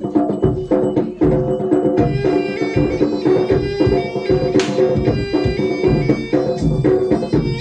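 Live bantengan accompaniment: a reedy, bagpipe-like sompret (Javanese shawm) plays a held, wavering melody over steadily beaten hand drums. One sharp crash cuts through a little past halfway.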